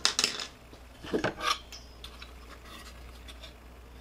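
Hard objects being handled: a clatter right at the start and another about a second in, then faint small ticks and rubbing.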